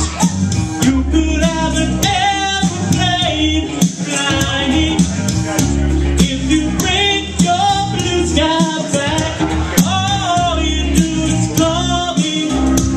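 A song playing: a voice singing over a band with a steady beat and a strong bass line.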